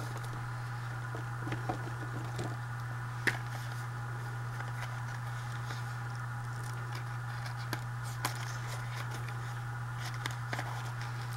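A steady low electrical hum, with a few faint clicks and taps from things being handled, and one sharper tap about three seconds in.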